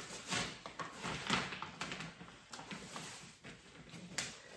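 Irregular rustling, scraping and soft knocks of a large gift box being handled and opened by hand.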